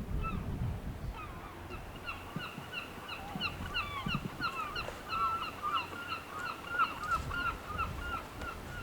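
A flock of geese honking: many short calls in quick, overlapping succession, over a low rumble.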